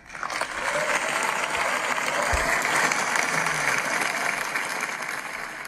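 Audience applause that swells in, holds steady, then fades near the end.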